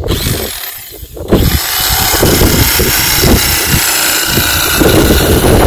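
A corded electric knife runs steadily as it trims the seat's foam cushion, starting about a second in.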